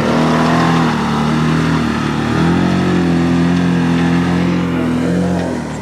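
An engine running steadily under load, its pitch rising near the start and then stepping down and back up a couple of times.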